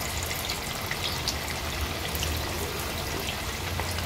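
Masala-coated surmai (king mackerel) steaks frying in hot oil in a pan: a steady sizzling and bubbling, scattered with small crackling pops.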